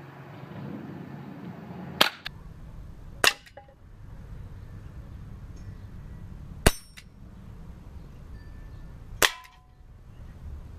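Crosman 357 CO2 air pistol firing four shots a few seconds apart, each a sharp crack. The last two are followed by a short metallic ring.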